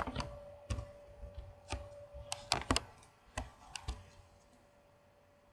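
Irregular clicks of a computer keyboard and mouse, about a dozen in the first four seconds, over a faint steady hum.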